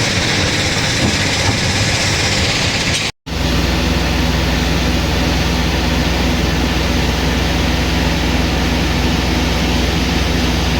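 Heavy machinery running: a dense, noisy machine sound, then after a short break about three seconds in, a diesel engine running at a steady speed with a deep, even hum.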